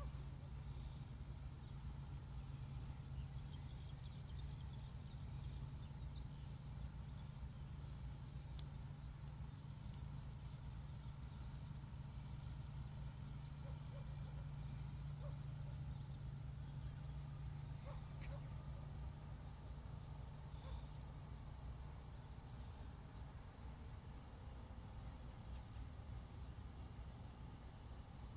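Field ambience: a steady high drone of insects with scattered faint chirps, over a low steady hum.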